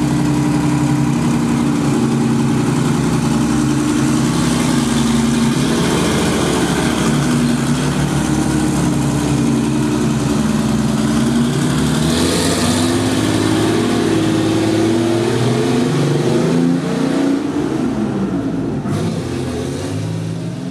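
Large piston engine running steadily, its revs rising and falling a few times and its pitch shifting as it does.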